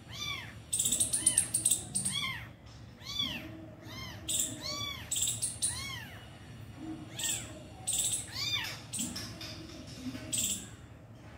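Orange kitten mewing over and over, a quick series of short, high, arching cries calling to its mother cat, with short shrill chittering bursts in between.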